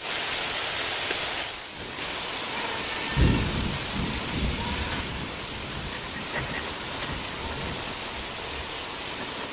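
Heavy rain hissing steadily, with a low rumble of thunder starting about three seconds in and fading away.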